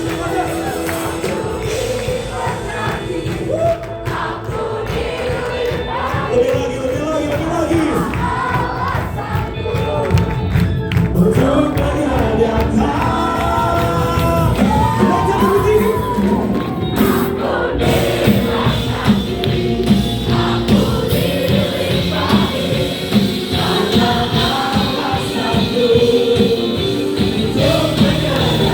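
Gospel praise song: a group of voices singing together over a band with a steady beat.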